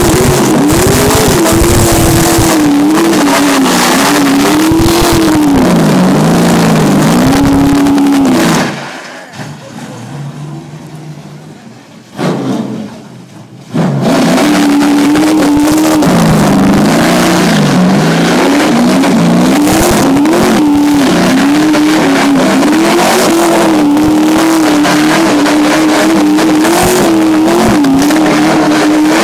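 Race supertruck's engine revving hard in a burnout, its tyres spinning on dirt, the pitch swinging up and down as the truck circles. About nine seconds in the sound drops away for some five seconds, then the revving comes back suddenly at full loudness.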